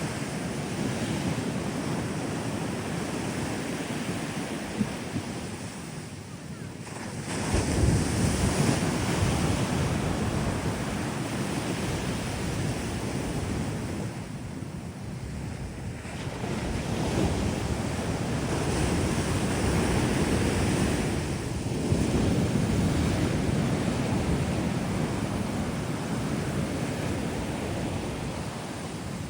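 Surf breaking and washing up a sandy beach, swelling with each wave at intervals of several seconds, with wind buffeting the microphone.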